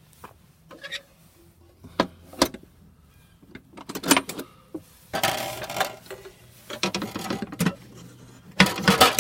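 Metal clunks and rattling from the steel interior of a vintage Coca-Cola vending machine as it is closed up by hand: a few sharp knocks, then two spells of clattering about halfway through and near the end. A steady low hum runs underneath.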